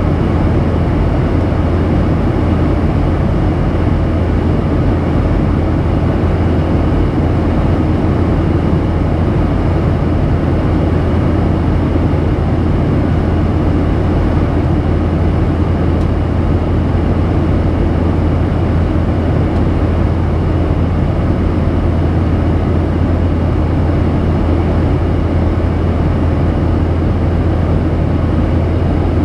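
Boeing 737-800 cabin noise in flight, heard from a window seat over the wing: the steady drone of its CFM56 turbofans and rushing airflow, with a strong low hum.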